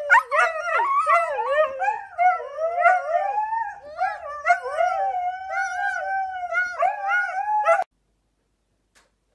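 Two huskies howling and 'talking' back and forth in a run of rising and falling, wavering howl syllables, cut off suddenly near the end.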